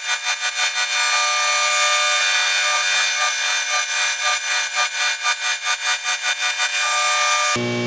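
Surface grinder wheel grinding the cast-iron body of a Stanley block plane flat, a loud hissing grind that pulses about four times a second, with stretches of steady grinding between. Shortly before the end the grinding cuts off abruptly, leaving a steady motor hum.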